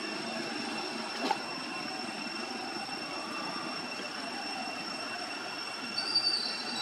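Steady outdoor background with a constant high-pitched drone made of two steady tones over a noisy hiss, a single click a little over a second in, and a few brief high squeaks near the end.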